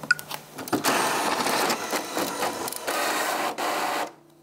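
A click as the printer's button is pressed. Then a multifunction office printer runs steadily as it feeds and prints a sheet, and stops suddenly about four seconds in, leaving a faint low hum.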